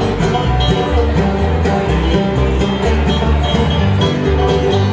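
Bluegrass band playing an instrumental passage: upright bass thumping out steady notes under picked banjo, mandolin and acoustic guitar.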